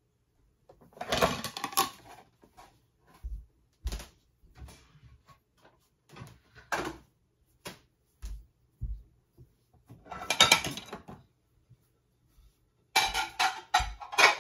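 Dishes and crockery clattering in irregular bursts as they are handled at kitchen cupboards, with several dull knocks of cupboard doors.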